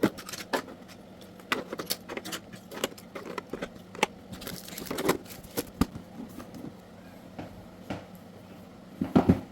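Handling of the unboxed hair clipper's box and small plastic accessories: irregular clicks, taps and light knocks, with a cluster of louder knocks near the end.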